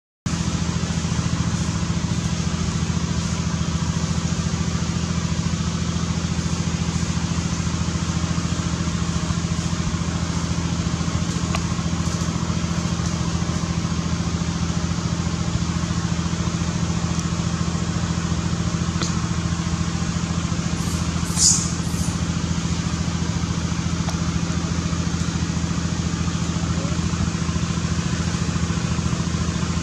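A steady low mechanical hum, like a running motor, continues without change. About twenty-one seconds in, one short high-pitched squeal stands out above it.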